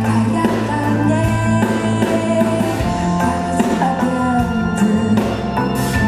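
A live rock band with a string section playing a song: electric guitar, violins and cello holding long notes, and a drum kit keeping a steady beat with cymbal strokes, under a lead singer's voice.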